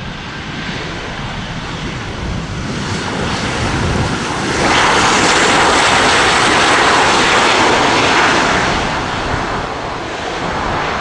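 Boeing 737-300 freighter's CFM56-3 jet engines on the landing roll after touchdown. The steady engine rush swells abruptly about four and a half seconds in to a loud roar of reverse thrust, holds for about four seconds, then eases off as the aircraft slows.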